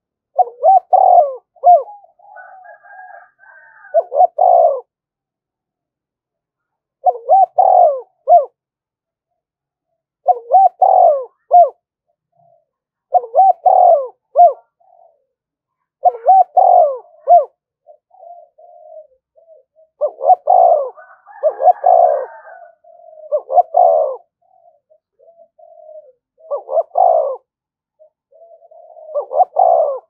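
Spotted dove (cu gáy) cooing in repeated challenge phrases, about one every three seconds, with softer coos between them. These are the male's fight-provoking territorial coos (thúc đấu), given by a decoy bird to draw out rival doves.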